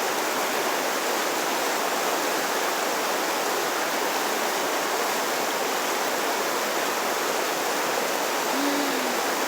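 Swollen floodwater river after heavy rain, rushing steadily and unbroken, a torrent strong enough to sweep away cars.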